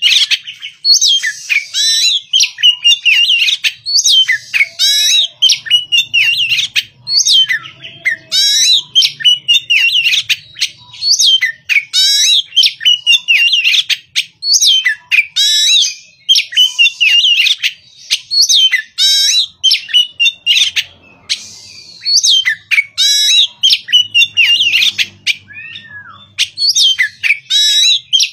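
Oriental magpie-robin singing a loud, varied song of rapid whistles and chirps in quick phrases, with only short breaks.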